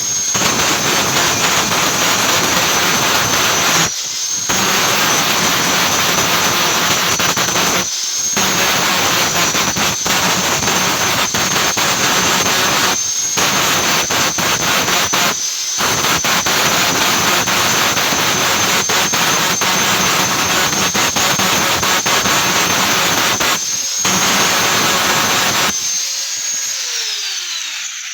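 Angle grinder running under load on steel, a steady high whine over loud grinding noise, with a few brief breaks. Near the end it is switched off and spins down, its whine falling away.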